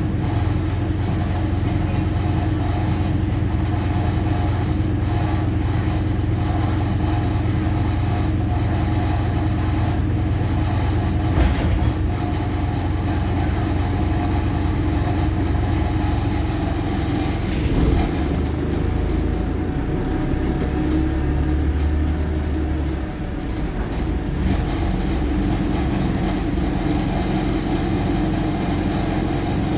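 Wright StreetLite single-deck bus heard from inside the saloon: the diesel engine runs with a steady low drone over road and body noise. There are a couple of brief knocks, and the engine note changes for a few seconds about eighteen seconds in before the drone picks back up.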